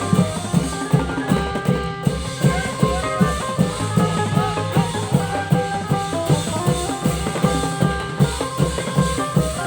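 Thai klong yao long-drum ensemble playing a steady driving beat, with about two to three strong drum strokes a second and held pitched notes ringing above the drums.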